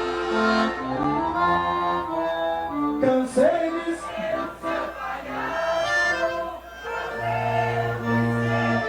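Live sertanejo band music with the accordion carrying the melody, played between sung verses.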